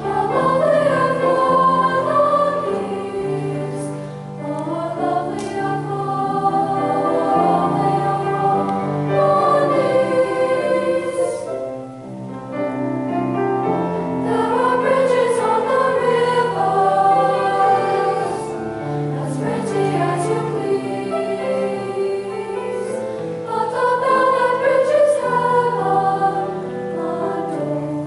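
Junior high school choir singing in harmony, with long held notes in flowing phrases and a short breath between phrases about twelve seconds in.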